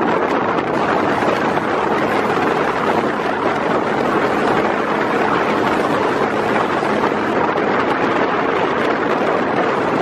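Steady wind rushing over the microphone, an even, unbroken noise.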